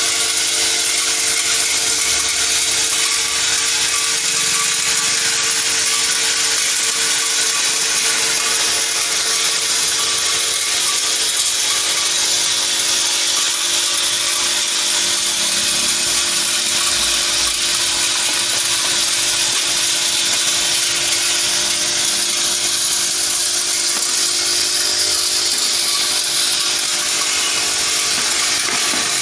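Vibratory bowl feeder running steadily: a constant hum with the dense, hissing rattle of many small steel bicycle-chain pins jostling in the bowl and along its spiral track.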